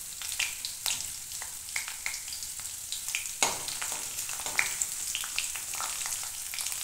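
Hot mustard oil sizzling and crackling with cumin seeds and two freshly added green chillies in a kadai. A metal spatula stirs them against the pan.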